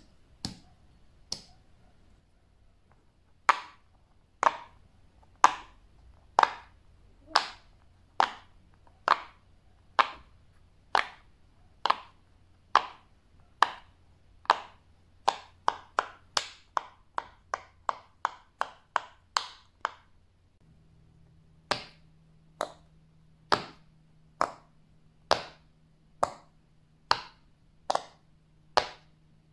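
Fidget toy being pressed or popped by hand: a long run of separate sharp pops, mostly about one a second, coming faster for a few seconds past the middle, with a brief pause before they go on.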